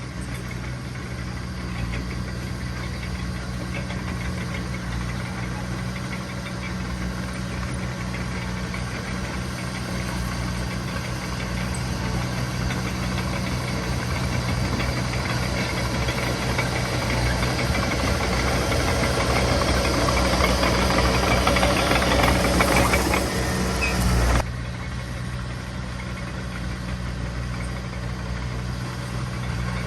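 Heavy diesel engine of an earthmoving machine running steadily, growing louder through the middle and dropping back suddenly near the end.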